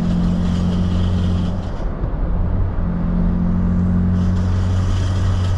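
Ford F-150 Raptor front axle making its abnormal noise while driving in 2H: a steady low drone with a higher tone that drops out for about a second partway through. It comes from the integrated wheel ends not fully disengaging, because the IWE vacuum check valve is leaking.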